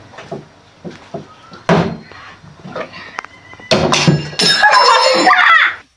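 A plastic water bottle, flipped onto the table, lands with a thunk about two seconds in and ends up lying on its side: a missed bottle flip. Loud voices follow near the end.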